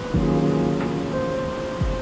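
Background music of held chords with a deep falling bass note twice, over a steady rush of water from river rapids.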